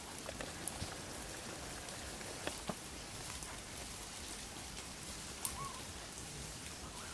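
Steady outdoor background hiss with a few scattered faint clicks and ticks.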